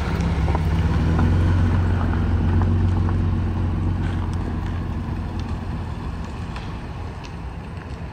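Car driving: a steady low engine and road rumble that slowly grows quieter.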